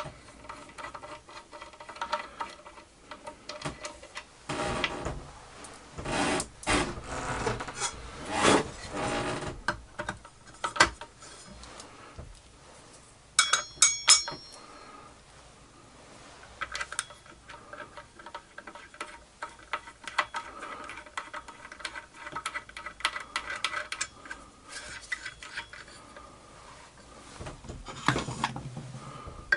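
Hand-handling of circular-saw parts: plywood rubbing and scraping against the motor housing, with scattered clicks and taps. About halfway through come a few sharp metallic clinks with a brief ringing as the steel saw blade and its flange are set onto the motor's arbor.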